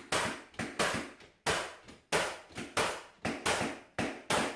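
Rubber-headed mallet striking a pneumatic hardwood floor nailer, each blow firing a fastener through the tongue of 3/4-inch hardwood boards into the plywood subfloor. About ten sharp strikes, roughly two a second, unevenly spaced, each dying away quickly.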